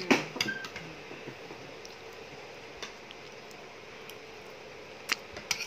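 Metal spoon tapping against a plate, a couple of small clicks near the end, over a quiet steady room hum.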